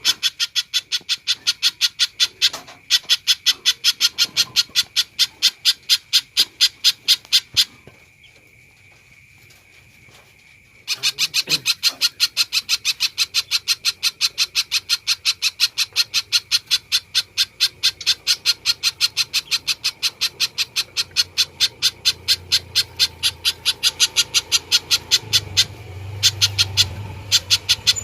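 Spiderhunter (pijantung) calling in a fast, even run of short sharp notes, about five a second. The run breaks off about eight seconds in and starts again some three seconds later, going on steadily.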